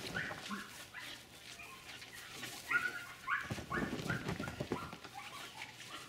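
Staffordshire bull terrier giving a quick series of short, high yips and whines, worked up during agility play.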